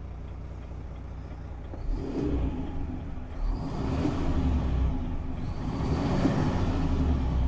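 Renault T 460's 11-litre straight-six diesel engine heard from inside the cab, idling and then revved in neutral: it rises about two seconds in and surges twice more, louder each time.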